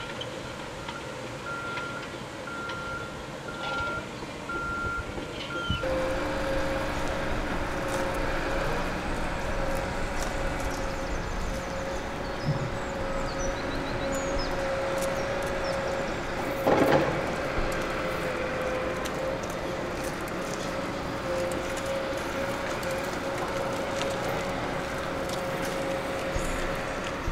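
A construction vehicle's reversing alarm beeps at a steady rate over the site noise, then stops about six seconds in. After that heavy diesel machinery, a crawler excavator and a dump truck, runs with a steady engine drone, with one brief loud clatter about two-thirds of the way through.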